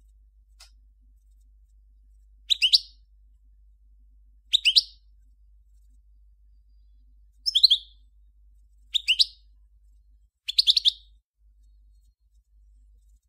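European goldfinch of the 'Major' race giving five short, high chirping song phrases, each under half a second, spaced a couple of seconds apart.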